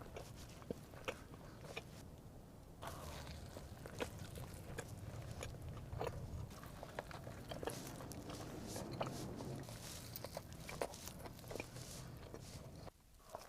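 A person biting and chewing crunchy food, with many short crisp clicks and crunches. A low steady hum sits underneath and drops away near the end.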